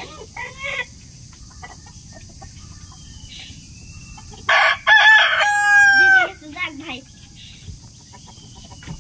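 Rooster crowing once, about halfway through: a rough, noisy start, then a long held note that drops in pitch as it ends. Softer short calls come before and after it.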